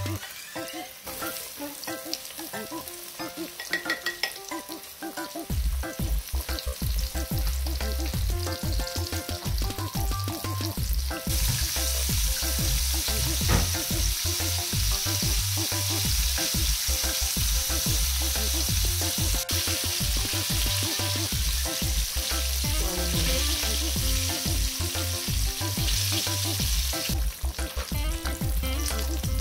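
Flour-coated mackerel fillets deep-frying in hot oil, a steady sizzle that turns louder about a third of the way in.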